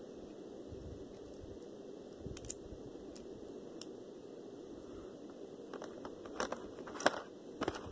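Scattered sharp clicks and crinkles of packaging being handled and opened, sparse at first and closer together in the last couple of seconds, over a steady low background hiss.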